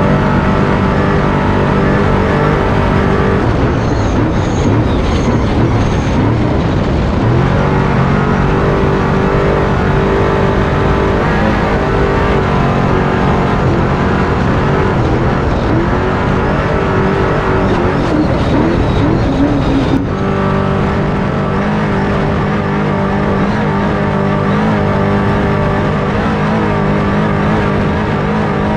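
Off-road truck engine running hard, its pitch rising and falling as it revs up and down, with a sudden change in the sound about two-thirds of the way through.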